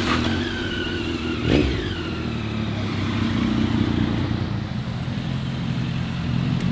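Motor vehicle engine running steadily amid road traffic. Two short falling tones sound in the first two seconds, with a knock about a second and a half in.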